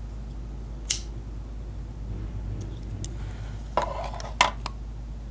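Disposable lighter being struck: a sharp click about a second in, then a short scrape of the spark wheel and another sharp click near four seconds as it catches.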